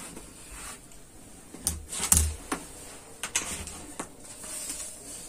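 A few sharp knocks and clatters of a tailor's ruler and measuring tape being picked up and set down on a cutting table, the loudest a double knock with a dull thud about two seconds in.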